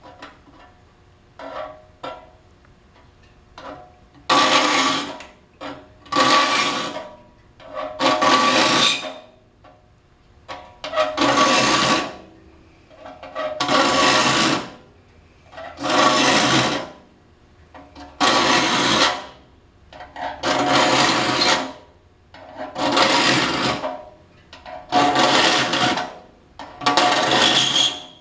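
Saw file being pushed across the teeth of a Disston D8 rip saw in long strokes, about eleven of them at a steady pace of roughly one every two seconds. The saw plate rings under each stroke. A few light scrapes and taps come before the first full stroke, about four seconds in.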